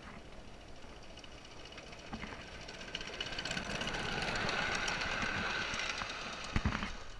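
A 5-inch gauge coal-fired live steam locomotive, a Martin Evans Simplex, running past close by with a rhythmic clatter. It grows louder for the first few seconds and eases off near the end.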